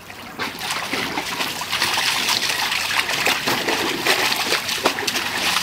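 Water splashing and sloshing as a large dog wades and paws in a shallow kiddie pool, getting more vigorous about two seconds in.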